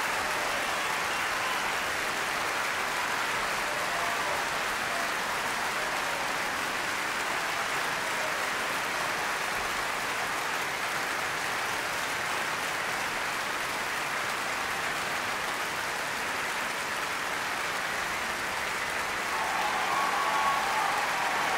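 Large audience applauding steadily, growing a little louder near the end.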